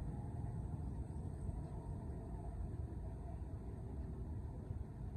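Steady low background rumble with no distinct separate sounds.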